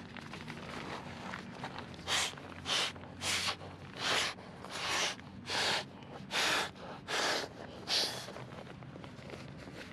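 A red Big Agnes AXL inflatable is blown up through its valve in short puffs of air, about ten of them, roughly one and a half a second, starting about two seconds in and stopping near the end.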